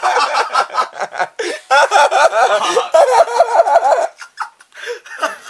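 Young men laughing in rapid fits, dying away about four seconds in.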